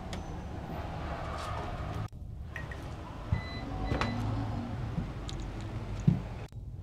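Steady low rumble and hiss with a few light knocks, the sound cutting out briefly twice.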